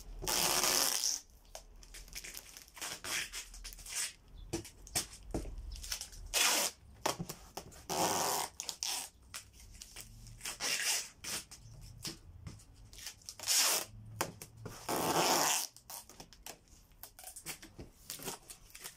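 Clear packing tape being ripped off its roll in several long, screeching pulls and pressed onto a cardboard box, with crinkling and rubbing as the tape is smoothed down. The strips bind the box tight so the structure is rigid.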